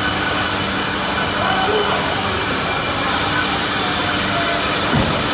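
Four-head horizontal band resaw running as a slab feeds through: a steady, dense noise of band saws cutting wood and the feed conveyor, over a low steady hum, with a single thump about five seconds in.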